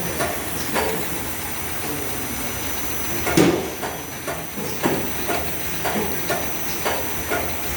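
Automatic bundle-packing machine for pharmaceutical bottles running: a string of short mechanical clacks over a steady hiss, the loudest knock about three and a half seconds in.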